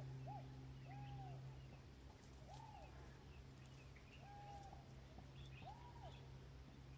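Faint bird calls: a series of about six short, arching notes, rising and falling in pitch, a second or so apart, over a steady low hum.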